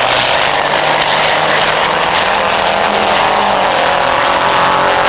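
Diesel race trucks' engines running hard at speed: a loud, steady drone whose engine pitch shifts slightly.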